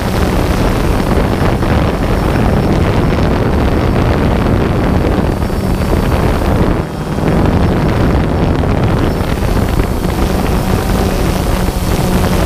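Wind buffeting the microphone of a camera drone in flight, with the faint hum of its propeller motors underneath; the rush dips briefly about halfway through.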